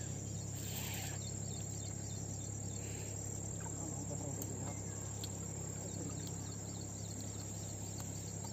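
Steady outdoor background noise with a continuous high-pitched insect trill, like crickets, and a few faint soft noises and clicks.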